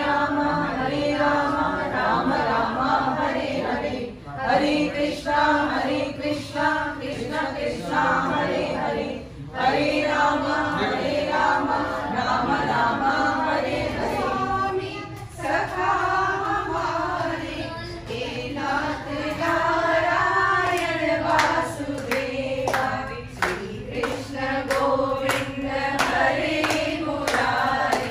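A group of women singing a devotional prayer song together, with short breaks between lines. Rhythmic hand clapping joins in through the second half.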